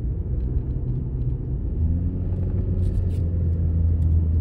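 2011 Chevy Cruze's 1.8-litre four-cylinder engine heard from inside the cabin while driving: a low steady drone that grows stronger about two seconds in as the car pulls up a small hill. It is running smoothly after a fresh tune-up with new spark plugs.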